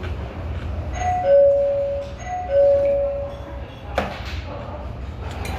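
Electronic two-note ding-dong chime, a short high note falling to a longer lower note, sounding twice in a row, over a steady low room hum. A single sharp click about four seconds in.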